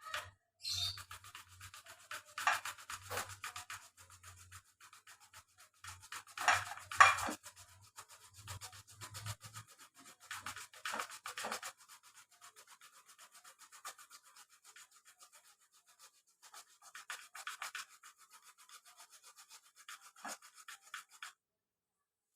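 Fresh ginger root being grated by hand on a grater: a long run of quick, repeated scraping strokes that stops near the end.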